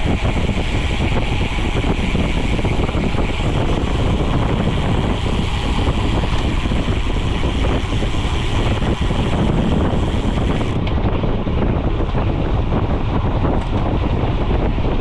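Wind buffeting a GoPro's microphone as a mountain bike is ridden fast on road, with steady rushing noise throughout. The higher hiss drops away about eleven seconds in.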